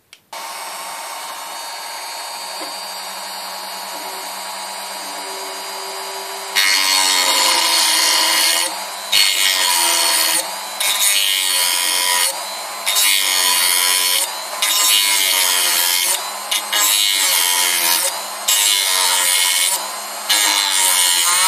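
Hand-held Minicraft rotary tool running, its motor whining steadily; from about six seconds in it cuts through the pins of a 30-pin IC in a series of louder, harsher passes of a second or two with short breaks between them, its pitch sagging and recovering as the cutter bites.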